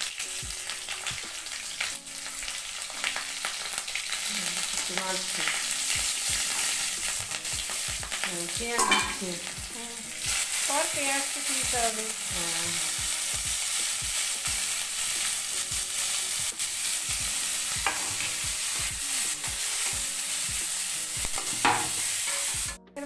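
Panch phoron spices, green chillies and sliced onion sizzling in hot oil in a wok, stirred with a metal spatula scraping the pan. The sizzling gets louder about ten seconds in and cuts off suddenly just before the end.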